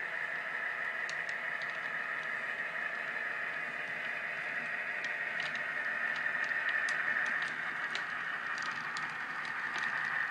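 HO scale model freight cars rolling along the track, their wheels clicking sharply over rail joints, more often from about halfway through. Under the clicks runs the steady diesel engine sound of the Atlas C424 locomotive's Soundtraxx Tsunami sound decoder.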